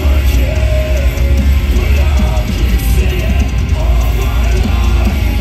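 Metalcore band playing live through a large PA: distorted electric guitars, bass and drum kit, loud and continuous, with a heavy booming low end.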